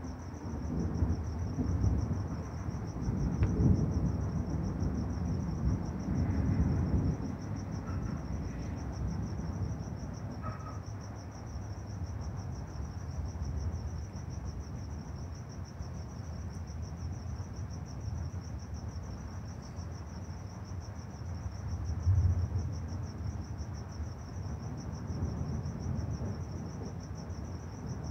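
Thunder rumbling, swelling through the first several seconds and again briefly past the twenty-second mark, over crickets trilling steadily.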